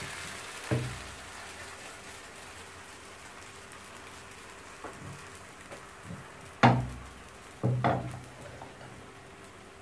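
Crepe batter sizzling faintly in a nonstick frying pan on a gas stove, with a few knocks as the pan is shifted on the metal grate. The loudest knock comes about two-thirds of the way through, followed by two more close together.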